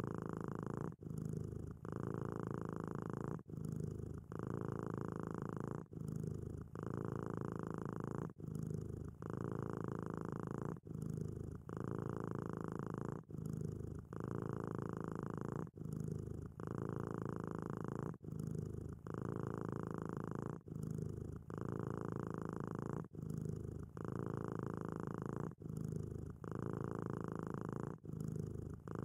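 Domestic cat purring steadily and close up, in even cycles that switch between a fuller and a deeper phase with a brief break about every second as the cat breathes in and out.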